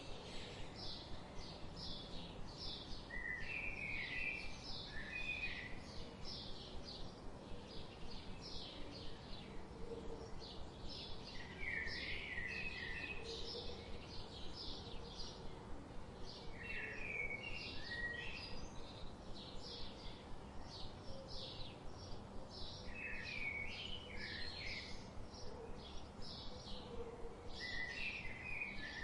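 Birds calling: a steady run of short, high chirps, about two or three a second, broken every five or six seconds by a brief warbled phrase.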